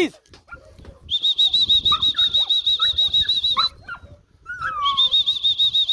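A trainer's pea whistle blown in two long trilling blasts, a recall signal calling the puppies in. Short high squeaks come between and under the blasts.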